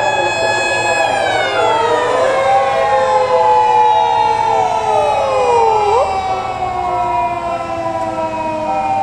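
Several emergency-vehicle sirens sounding at once. One long wail slides slowly down in pitch over several seconds, while other siren tones rise and fall across it, over a low rumble of traffic.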